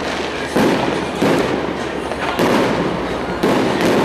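Aerial fireworks going off: about five sharp bangs, roughly a second apart, with the noise of the display never dying away between them.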